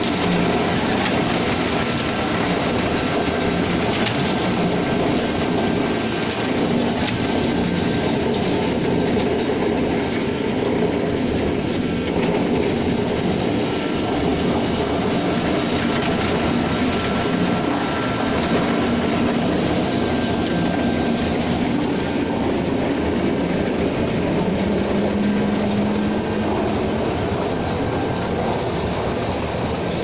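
JBS40 trailer-mounted concrete mixer pump running at work: a loud, steady mechanical clatter of the machine, with a brief steady hum joining in near the end.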